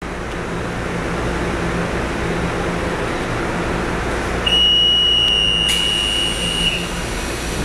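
Stationary EMU700 electric train's cabin hum from its air conditioning and equipment, then a steady high-pitched warning buzzer sounds for about two seconds, with a thud partway through: the signal that the doors are closing for departure.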